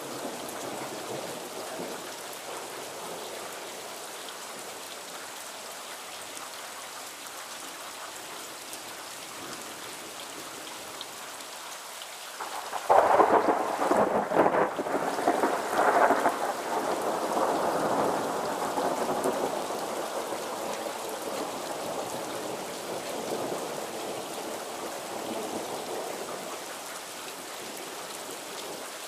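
Steady rain falling in a thunderstorm. A little before halfway a sudden loud thunderclap breaks with several cracks in quick succession, then rolls on as a rumble that fades over about ten seconds.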